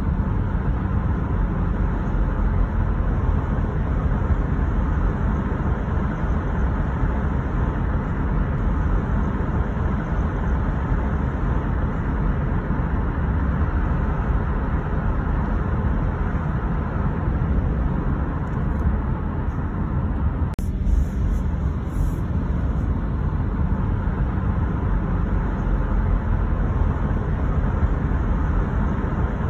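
Steady low rumble of road noise from a car driving along a city street.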